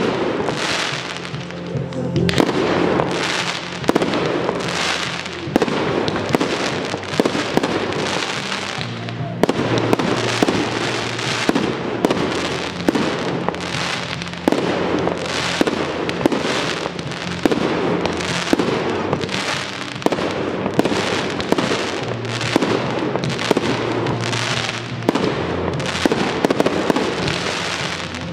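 Aerial fireworks shells bursting one after another, a rapid series of sharp bangs and crackles, with music playing underneath.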